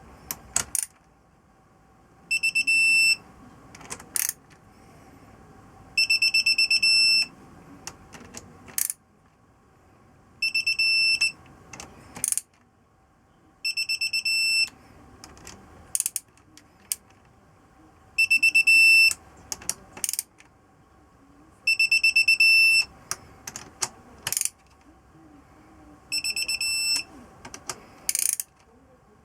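An electronic beeper sounding in bursts of rapid high beeps, each burst about a second long and repeating roughly every four seconds. A sharp click or knock comes between each burst.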